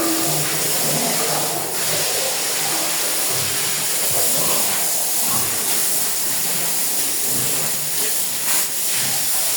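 Water spraying in a steady hiss as pigs and their pen are washed down.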